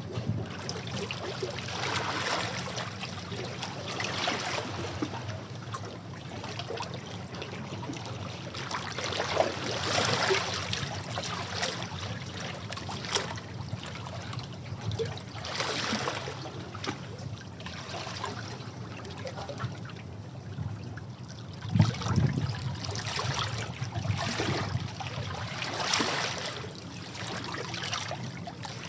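Sea waves washing over rocks: water surging in and draining back in uneven swells every few seconds, over a steady low rumble of surf.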